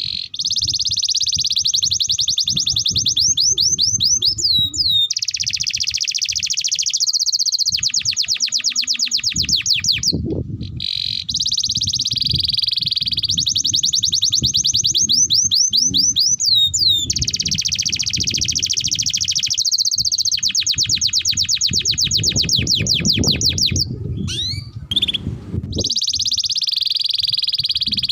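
Domestic canary singing a long, continuous song of rapid trills and rolls, the high notes repeating many times a second with occasional quick downward sweeps. The song breaks off briefly twice, over a faint low rumble.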